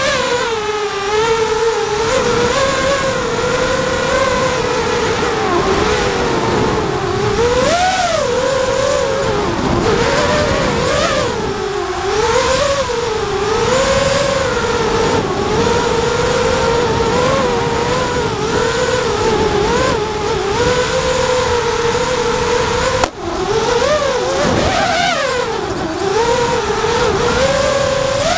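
Mini FPV racing quadcopter's four Cobra 2204 2300kv brushless motors driving 5045 tri-blade props, a steady whine that rises and falls in pitch as the throttle is worked. About two-thirds of the way through the whine cuts out for an instant, then comes straight back.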